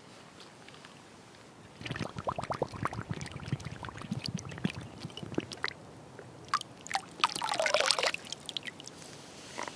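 A collapsible plastic water pouch held under a lake's surface, gurgling and bubbling with irregular glugs for about four seconds as it fills. Later it is lifted out and water runs and splashes from it back onto the water for about a second.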